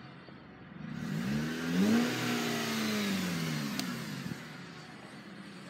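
Dodge car engine speeding up, its pitch rising for about a second and then slowly falling away as it eases off, over steady road noise, heard from inside the car.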